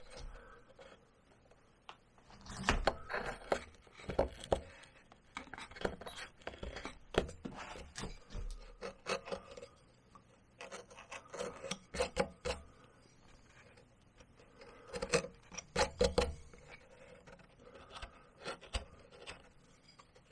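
Hand carving tools, a small gouge and a carving knife, cutting into cottonwood bark: short scraping, clicking cuts in bunches of a few strokes, with pauses between the bunches.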